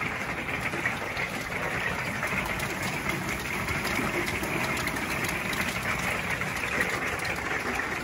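Heavy rain mixed with tiny pellet hail drumming on an RV's roof and walls, heard from inside: a steady, loud, dense patter of many small hits.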